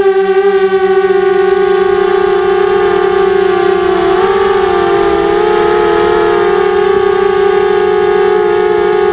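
FPV quadcopter's electric motors and propellers whining in steady forward flight, a loud, even high-pitched hum heard from the drone's own camera. The pitch steps up slightly about four seconds in as the throttle changes.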